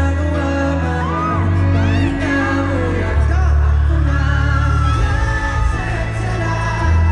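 Male pop vocal group singing a ballad live through a large sound system, with deep bass notes, while the crowd whoops.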